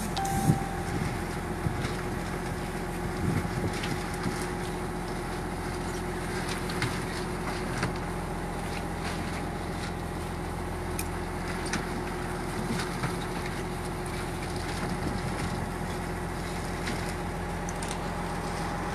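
Fishing boat's inboard engine running steadily, with scattered knocks and clicks as the gillnet is paid out over the side.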